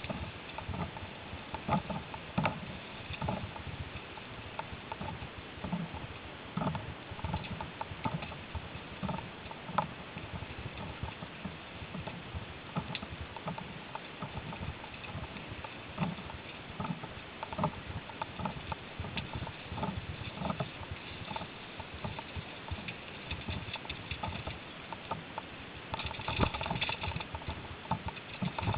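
Mountain bike on a dirt forest trail: tyres crunching over the ground and leaves, with the bike rattling and knocking irregularly over bumps.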